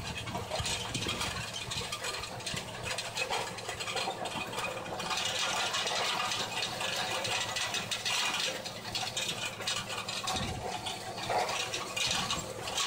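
Tractor engine running steadily under the rattle of a rear-mounted row-crop cultivator, its rolling cutters and tines working the soil between crop rows.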